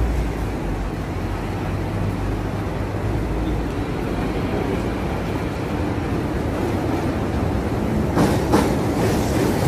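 Street traffic rumble with a double-decker tram running on its street rails, and a few sharp clacks near the end.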